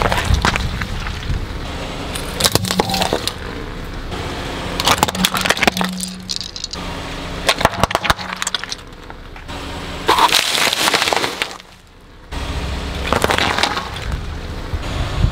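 A car tyre rolling slowly over objects on concrete and crushing them one after another. Whole papayas squash and split, then smaller crunchy and squishy items give way, with repeated sharp cracks and crunches. The crushes come in separate takes with abrupt breaks between them.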